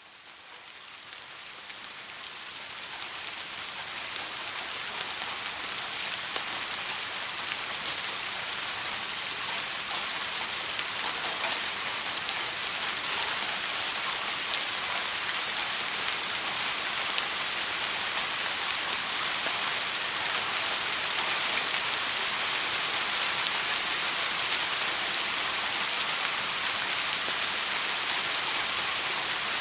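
Steady rain falling and pattering on surfaces, a dense even hiss with fine drop detail, fading up over the first few seconds and then holding level.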